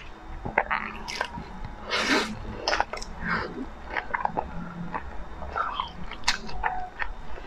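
Close-miked chewing of a mouthful of salmon sushi topped with caviar: irregular mouth clicks and smacks.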